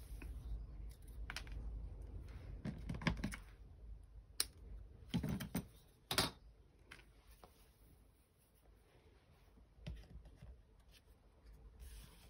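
Craft handling on a table: twine measured along a plastic ruler and cut with scissors, which are then set down. The sound is a scatter of small clicks, snips and taps over soft rustling, the sharpest a few seconds in.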